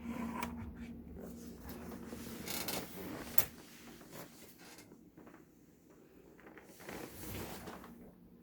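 Unwanted audio noise from a computer music setup: a steady low hum with irregular scratchy crackling bursts and clicks over it, and one sharp click about three and a half seconds in.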